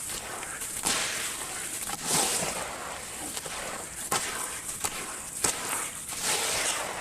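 Chunks of sand cement crumbling and breaking apart in water: a series of sharp cracks and crunches, with two longer rushing, gritty bursts, about two seconds in and near the end.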